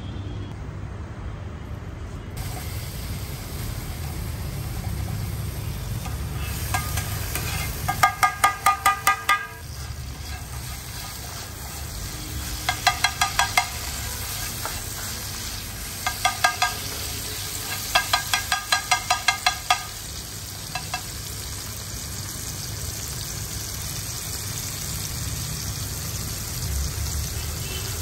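Tomato masala sizzling in oil on a flat metal tawa. Four bursts of rapid metal spatula strikes on the griddle, about five or six clanks a second, ring out over the frying.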